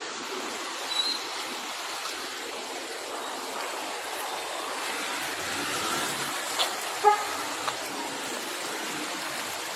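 Steady hiss of rain and traffic on a wet street, with a short car horn toot about seven seconds in.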